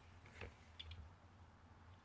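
Faint, brief scratching strokes of handwriting on paper, one about half a second in and a few small ticks soon after, over a low steady hum.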